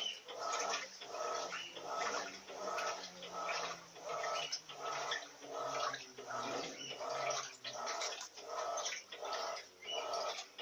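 Electrolux Silent Control 16 kg top-load washing machine agitating a duvet on its duvet programme. Water and laundry swish back and forth in even strokes, roughly four every three seconds.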